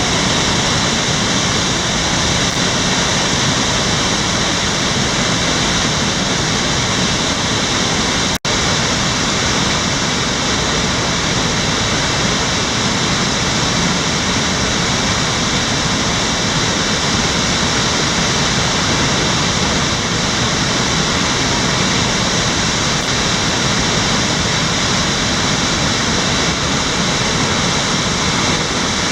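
Steady, loud rushing of water after heavy rain. The sound cuts out for an instant about eight seconds in.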